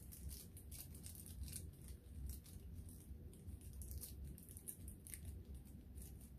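Faint, irregular crinkling and tearing of packaging as a toy package is opened by hand, over a low steady hum.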